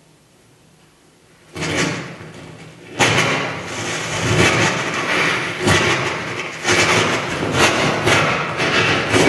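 Electroacoustic sound of a performance for sound costume: very quiet at first, then about a second and a half in a burst of noise, and from about three seconds in a dense, noisy clatter with frequent sudden hits.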